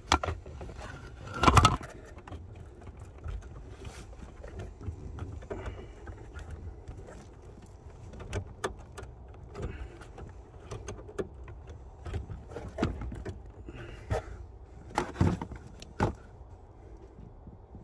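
Scattered clicks, knocks and rustling of hands working on plastic trim and wiring connectors behind a car's dashboard, with a louder knock and rustle about a second and a half in and a few sharper clicks near the end.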